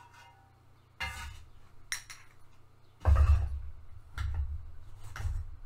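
Clinks and knocks of a metal canister lid and glass dishes being handled, with a heavy thump about three seconds in, the loudest, and two more knocks after it.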